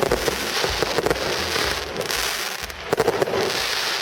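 F2 consumer fireworks going off: dense crackling with rapid sharp bangs throughout, and a cluster of stronger bangs about three seconds in.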